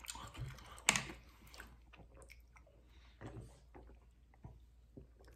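A man chewing a mouthful of breakfast burrito close to the microphone: soft, irregular wet mouth clicks, with one sharper click about a second in. Near the end he sips from a plastic shaker bottle.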